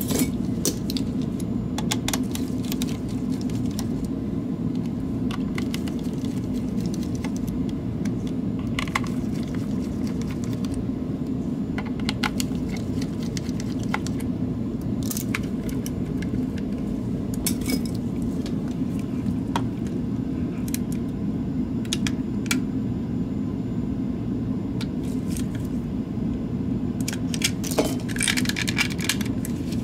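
Scattered light clicks and taps of a Logitech G703 mouse's plastic shell and its tiny screws being handled while the mouse is taken apart, with a quicker run of clicks near the end, over a steady low hum.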